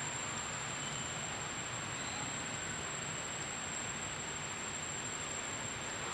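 Steady background hiss with a faint, constant high-pitched tone; no distinct rustles, calls or knocks stand out.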